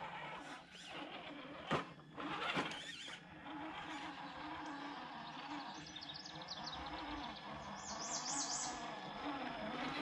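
Traxxas TRX-4 RC crawler's electric motor and drivetrain whining steadily as the truck drives along the trail, with two sharp clicks about two seconds in and a run of high rising chirps near the end.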